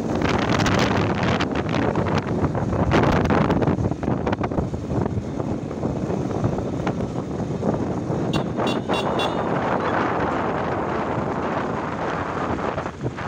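Wind rushing over the microphone on a moving motorcycle, with road and vehicle noise underneath. A little past the middle comes a quick run of four short high-pitched horn beeps.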